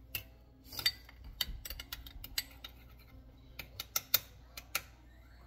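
Metal spoon clinking against a small glass bowl in quick, irregular ticks as wasabi is stirred into hot sauce.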